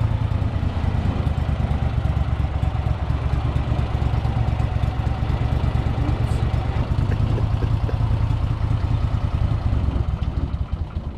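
A motor engine running steadily at close range, loud and rough with a rapid pulse, easing off just before the end.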